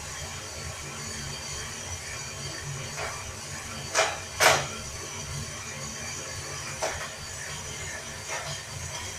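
Coffee beans roasting in a small homemade drum roaster over a gas burner: a steady low rumble and rattle as the drum turns the beans, broken by a few sharp cracks, two loud ones close together about four seconds in, the cracking of the beans as they roast.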